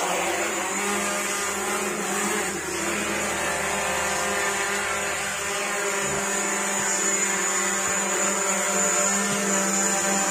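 MJX Bugs B4W 4K brushless quadcopter drone flying after take-off. Its four motors and propellers make a steady whirring hum with a thin high whine over it.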